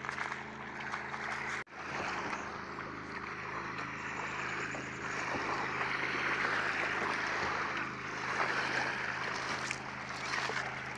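Steady rush of wind and river water over a low, steady drone of a distant motorboat engine. The sound cuts out for an instant just under two seconds in.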